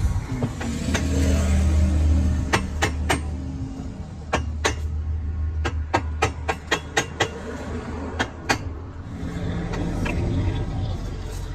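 Steady low machine hum, with a run of about a dozen sharp knocks struck at uneven intervals through the middle.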